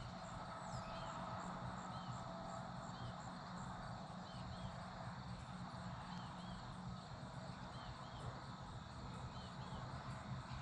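Quiet open-field outdoor background: a low steady hum with many small, high chirps repeating irregularly.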